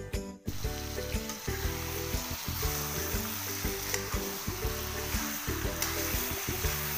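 Masala chicken sizzling in an aluminium pot as it is stirred with a metal slotted spoon, starting about half a second in, with a few light scrapes of the spoon on the pot. Background music plays under it.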